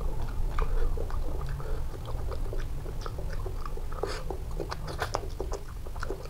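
Close-up mouth sounds of a person eating boiled rohu fish and rice by hand: chewing, with many small irregular wet clicks and smacks. A steady low hum runs underneath.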